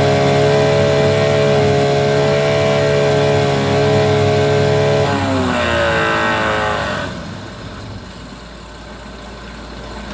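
9.9 hp Mercury outboard motor running steadily at raised throttle. About five seconds in it is throttled back: the pitch slides down, and by seven seconds it has settled to a quieter idle. The engine runs well now, its failure to start put down to a rotted fuel line sucking air.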